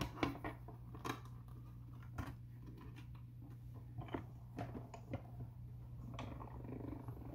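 Hand-cranked Stampin' Cut & Emboss machine rolling a plate sandwich with an embossing folder through its rollers, giving off a series of faint, irregular clicks and creaks.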